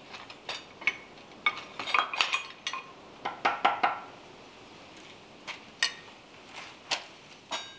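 Irregular metallic clinks and taps of steel tongs shifting on a steel drawknife blade, some with a brief ring, a cluster of them in the middle. Beneath them runs the faint steady hiss of the acetylene torch flame heating the blade's edge.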